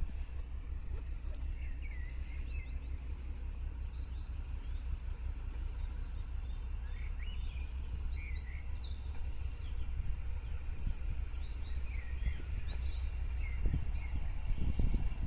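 Birds chirping over a low, steady rumble from a distant PKP SM48 (TEM2) diesel-electric locomotive approaching along the line. The rumble grows louder near the end.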